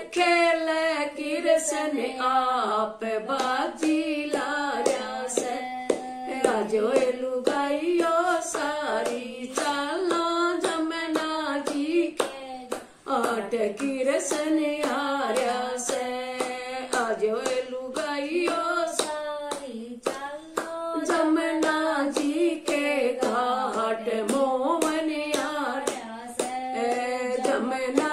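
A woman singing a Haryanvi Krishna bhajan unaccompanied, clapping her hands in a steady rhythm to keep time.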